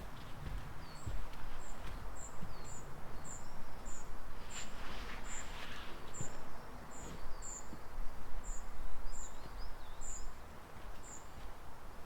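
Woodland birdsong: a bird repeating a short, high chirp about twice a second, with fainter whistles from other birds underneath. Some rustling about halfway through.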